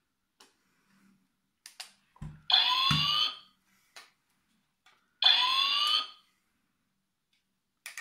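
Top Race self-balancing toy robot's speaker playing an electronic sound effect twice, each about a second long and made of rising tones: the first about two and a half seconds in, the second a little past five seconds. Two low thumps come with the first, and faint clicks are scattered between.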